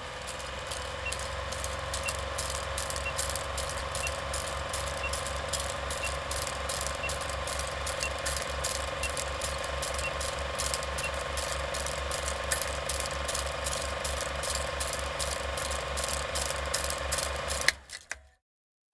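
Running film projector: a steady mechanical whir with fast, even clicking from the film advance, stopping abruptly with a click near the end.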